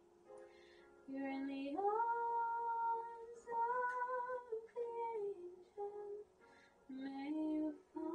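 A woman's voice singing a slow, wordless melody in phrases of long held notes, after about a second of quiet.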